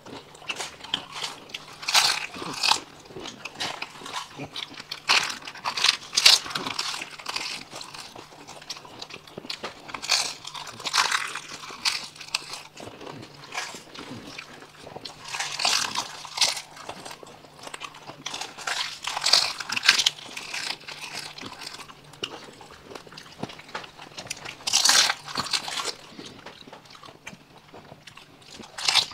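Crisp fried fuchka (pani puri) shells topped with sev crunching as they are bitten into and chewed, several mouths at once. The crunching comes in loud clusters every few seconds, with quieter chewing between.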